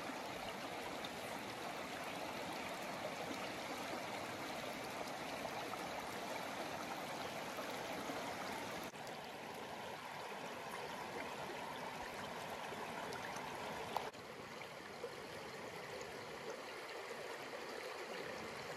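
River current rushing steadily, with a slight shift in tone about nine and fourteen seconds in.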